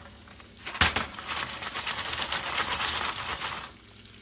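Jiffy Pop foil pan being shaken back and forth on a hot stove burner: the pan rattles and its contents sizzle, with a sharp knock of the pan against the burner about a second in.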